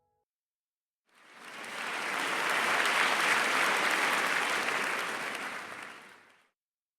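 Audience applauding, a dense even clatter of many clapping hands that fades in about a second in and fades out near the end.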